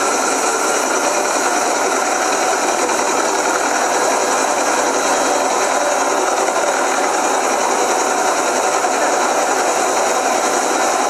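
Helicopter running on the ground: a steady, unbroken mix of turbine and rotor noise.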